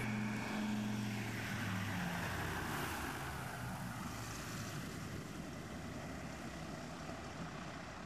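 Twin Pratt & Whitney R-1830 radial engines of a PBY-6A Catalina amphibian running as it rolls down a runway during an engine test run, a steady drone that fades as the plane moves away.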